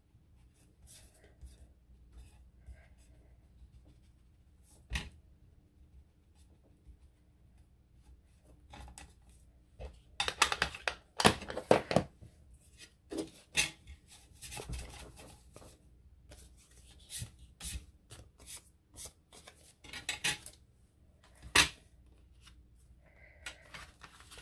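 Paper and craft tools being handled on a desk: rustling, rubbing and scraping of paper with scattered sharp clicks and taps. A single sharp tap comes about five seconds in, the busiest rustling about halfway through, and another sharp tap near the end.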